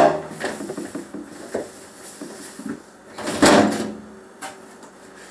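Knocks and a scraping slide of plastic refrigerator parts being handled while the empty fridge is cleaned. The loudest is one longer scrape about three and a half seconds in.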